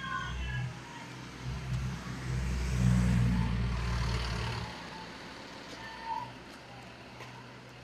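A pickup truck drives past close by: its engine rumble and tyre noise build to a peak about three seconds in, then fall away.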